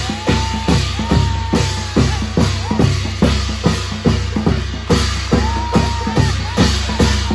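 Background pop music in an instrumental break: a steady drum-kit beat with kick and snare, and a held melodic line that comes in twice.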